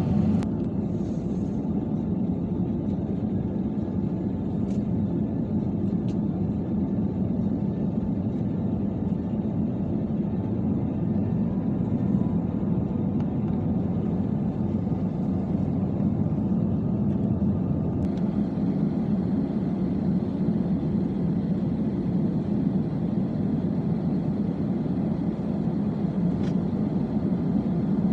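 Steady low rumble inside the cabin of an Airbus A320-216 with CFM56-5B engines running, even in level throughout, with a few faint ticks.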